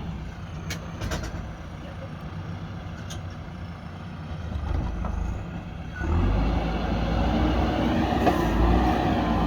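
Diesel engine of a JCB backhoe loader running steadily, with a few sharp clicks in the first few seconds. About six seconds in it revs up sharply and stays louder, as the machine takes on load.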